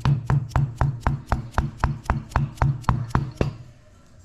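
Hammer tapping an ice pick down alongside a stuck, corroded battery inside a Mag-Lite flashlight tube: rapid, even metal taps at about four a second, each with a short ring, stopping about three and a half seconds in.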